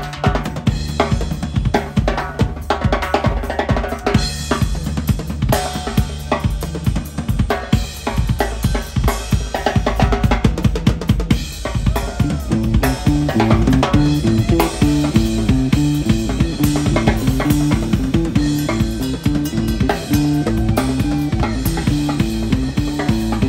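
Live rock drum kit playing busy kick, snare and cymbal patterns, with electric bass guitar underneath. About halfway through, the bass locks into a fast repeating riff of alternating low notes.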